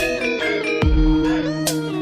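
Electronic music with gliding synth melody lines, deep bass hits and sharp drum strikes.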